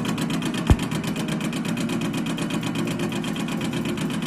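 High-speed automatic tube-cutting machine running, its blade making a fast, even chatter of cutting strokes. One sharp knock stands out just under a second in.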